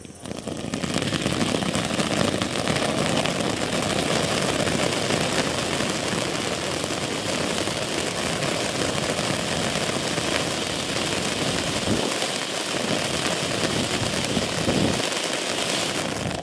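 Ravikannan 'Poppings' ground fountain firework spraying sparks: a steady rushing hiss with fine crackling through it, building up within the first second after ignition.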